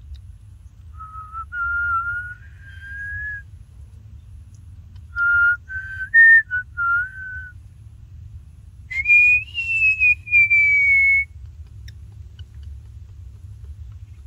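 Whistling in three short phrases. First a held note that rises slowly, then a run of short notes stepping up and down like a tune, then a higher, louder note that jumps up and slides slowly down.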